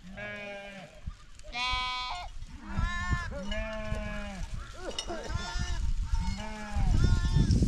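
A flock of sheep bleating: several animals calling one after another, some calls higher and some lower, each with a wavering quaver. A low rumbling noise comes in near the end.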